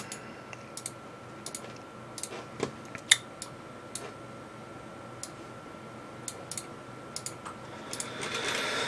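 Scattered clicks of a computer mouse and keyboard, a few irregular presses a second, over a faint steady high-pitched tone.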